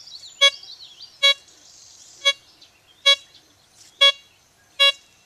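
Blisstool LTC64 metal detector giving a short pitched beep about once a second, six times, as it is swept back and forth over a small buckle buried 17 inches deep: the detector is picking up the target at that depth.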